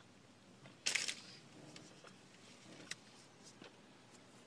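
Eating and handling sounds from a bagel with cream cheese: a short crackly crunch about a second in, then faint chewing and a few light clicks.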